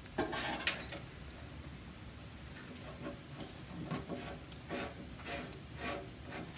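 Rubbing and scraping from a hand working at the bottom of a test bench's electrical control cabinet: a louder scrape just after the start, then a run of shorter scrapes about half a second apart.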